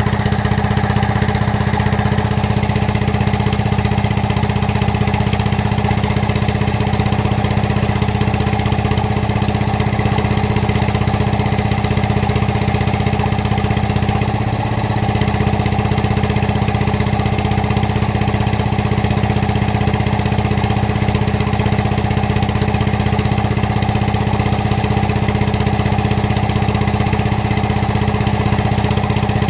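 Excavator's diesel engine idling steadily, with a brief dip in level about halfway through.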